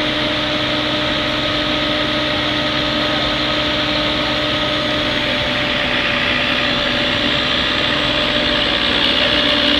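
Asphalt paving machine's engine running steadily, a constant hum with a few steady tones, getting slightly louder near the end.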